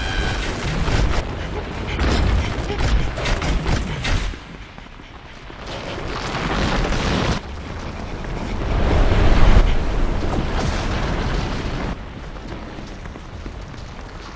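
Home-recorded foley for breaking, collapsing ice: deep rumbling crashes that come in several loud surges and die down toward the end.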